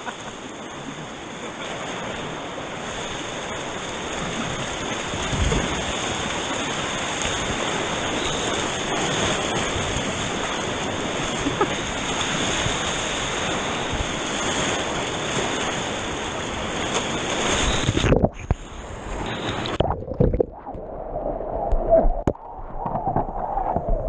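Rushing river water of rapids, a steady loud rush that changes abruptly about 18 seconds in to quieter, uneven water sounds.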